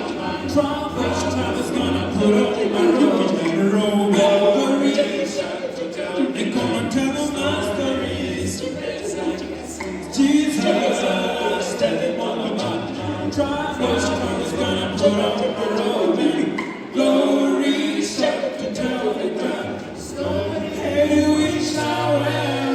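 A choir singing a gospel song a cappella, several voices in harmony with a low bass part, in phrases with short breaths between them.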